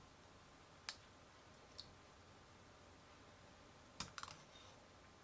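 A few short clicks of M1 Carbine parts being handled during field stripping: one sharp click about a second in, a fainter one shortly after, and a quick cluster of clicks about four seconds in, the loudest.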